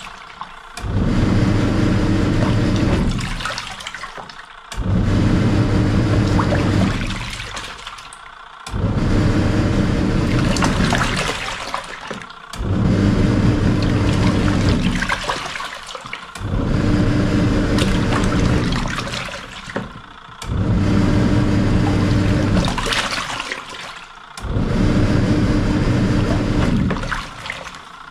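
Samsung SW-655P twin tub's wash tub at work: the motor hums while the pulsator churns water and laundry in runs of about three seconds, stopping briefly between runs as it changes direction, about every four seconds.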